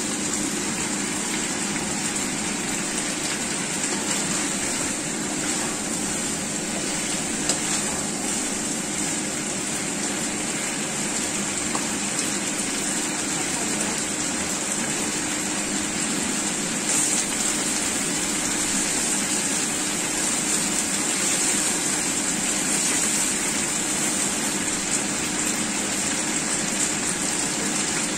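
Chicken wings and potato chunks sizzling steadily as they fry in a pan.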